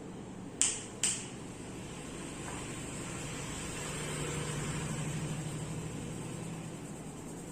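Two sharp snaps about half a second apart, then a steady hum that swells a little midway.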